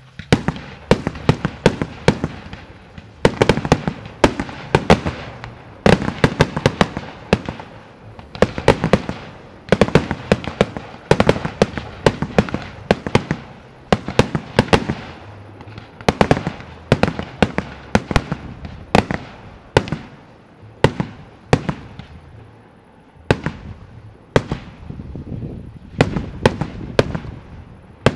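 Aerial fireworks display: shells bursting in rapid volleys of sharp bangs and crackles, several a second, with short pauses between volleys.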